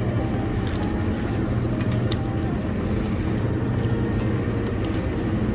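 Steady low machinery hum filling the room, with a few faint clicks of a knife against the cutting board as beef liver is sliced.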